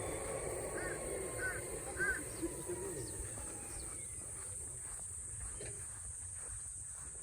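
A crow cawing: three short caws about half a second apart, starting about a second in.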